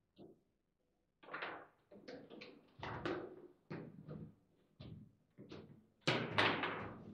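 Table football table in play: a quick, uneven run of sharp knocks and clacks as the ball is struck by the player figures and rattles about the table, about a dozen in all, the loudest near the end.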